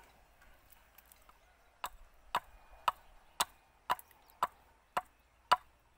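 Axe chopping into wood on a stump chopping block: eight sharp blows about two a second, starting just under two seconds in.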